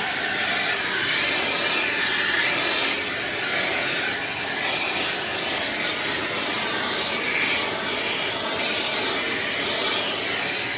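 Hand-held gas torch burning with a steady hissing flame.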